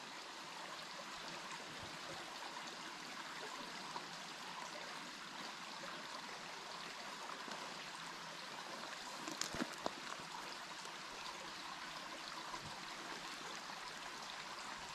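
Small woodland stream flowing steadily, a faint, even rush of water, with a few soft clicks about nine and a half seconds in.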